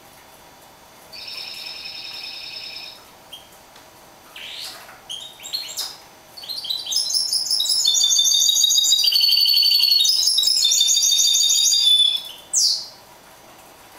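A caged mule, a hybrid finch, singing. A short trill comes about a second in, then a few short calls, then a long warbling song of rapid trilled phrases that stops suddenly near the end, followed by one last note.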